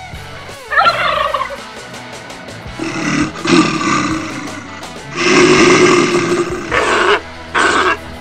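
Elephant trumpeting during a charge: a short call falling in pitch about a second in, rougher calls a few seconds later, a long loud blast around the middle, then short blasts near the end.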